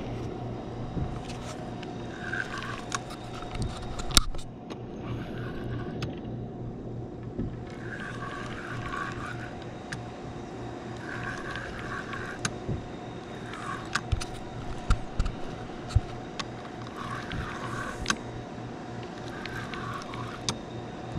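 Spinning rod and reel being handled in a plastic kayak: scattered clicks and knocks from the reel and rod, with a sharp knock about four seconds in and a run of clicks around fourteen to eighteen seconds. Under it a steady hum and rushing water from the river spillway.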